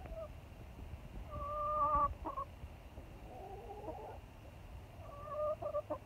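Backyard hens calling: a held, even-pitched call about a second and a half in, a wavering call around the middle, and another held call near the end. A brief low rumble comes in about two seconds in.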